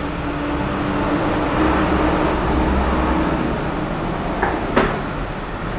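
Road traffic: a heavy vehicle's engine rumbling past, swelling and then easing off, with a short sharp click near the end.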